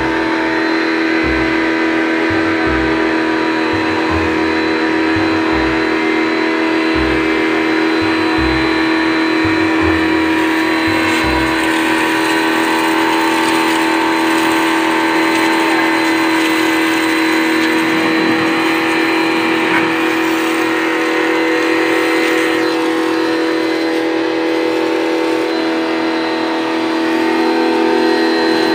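Kawasaki ACK 302 electric pressure washer running steadily, its motor and pump giving a constant whine over the hiss of the water jet spraying onto a car.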